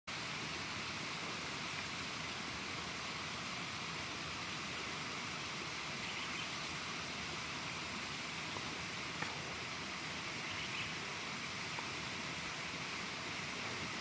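Steady outdoor ambience: an even, unchanging rushing hiss with no clear calls standing out.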